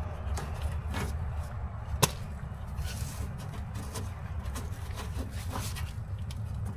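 Scattered light clicks and knocks of hand work on metal car parts, with one sharp click about two seconds in, over a steady low hum.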